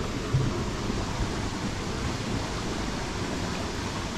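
Steady outdoor rushing noise, the kind made by flowing water and wind on the microphone, with a brief low thump about a third of a second in.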